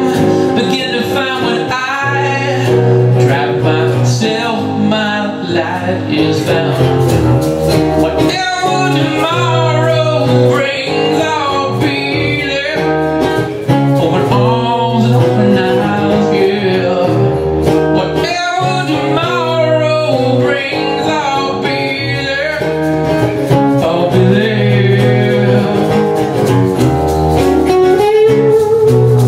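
Acoustic band rehearsing: two acoustic guitars strummed and picked under a man's lead vocal, singing a slow blues-country song.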